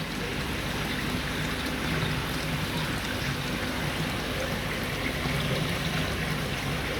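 Running water trickling and splashing steadily into a pond.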